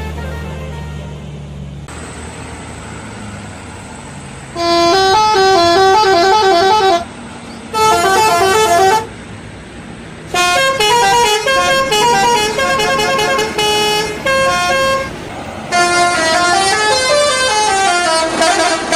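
Bus telolet horn, a multi-trumpet musical horn, playing quick stepping tunes in four loud bursts with short pauses between them, beginning about four and a half seconds in. Before it there is a low steady hum.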